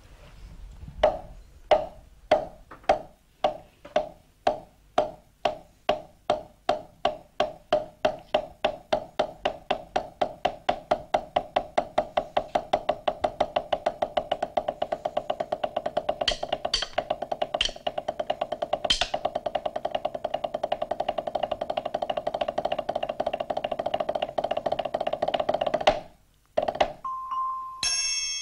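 Sticks beating a practice drum, a wooden box with a pad on top. Slow single strokes speed up into a fast, steady roll that stops abruptly about 26 seconds in, with a few brighter metallic clinks in the middle. Bright ringing notes from a glockenspiel and triangle start near the end.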